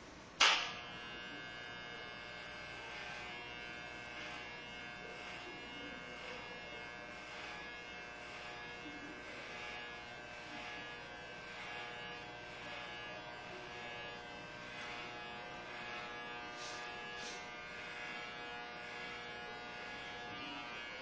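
Electric hair clippers switched on with a sharp click about half a second in, then buzzing steadily.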